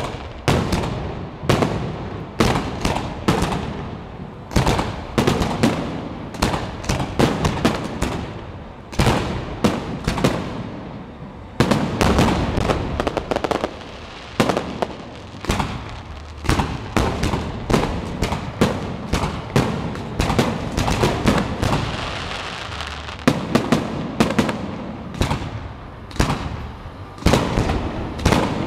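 Fireworks display: aerial shells firing and bursting in a fast, unbroken string of sharp bangs, with crackle and hiss filling the gaps between reports.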